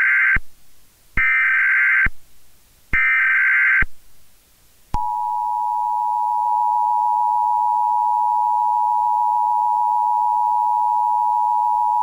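Emergency Alert System broadcast signal: three bursts of SAME header data tones, each just under a second long with short gaps between them, the first already under way. About five seconds in, the steady two-tone EAS attention signal begins and holds.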